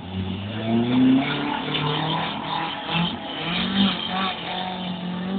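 Off-road vehicle engine revving, its pitch climbing over the first second, then rising and falling with the throttle.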